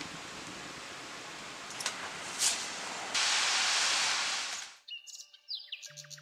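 Hot oil sizzling hard as murukku dough fries in an iron kadai, starting about three seconds in over a softer hiss with a couple of clicks, then cutting off suddenly. Music starts near the end.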